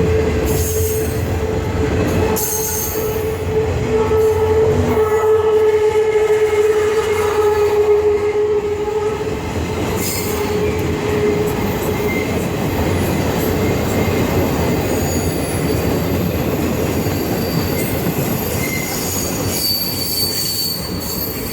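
The empty cars of a long freight train rolling past, wheels rumbling and clattering over the rails. A steady high wheel squeal runs through roughly the first half and comes back near the end.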